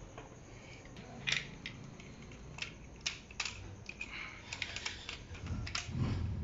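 Light metallic clicks and rattles of a Dodge Dakota 3.7 timing chain being handled and fitted over a camshaft sprocket, irregular and scattered, with a duller bump near the end.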